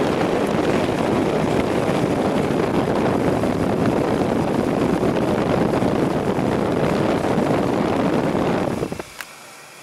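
Blower of an Incinolet incinerating toilet running, a steady rush of air at its duct opening. It drops away suddenly about nine seconds in.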